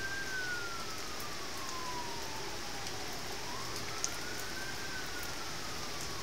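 An emergency vehicle siren wailing, its pitch sliding slowly up and down about every four and a half seconds, over the steady hiss of heavy rain. There is one sharp tick about four seconds in.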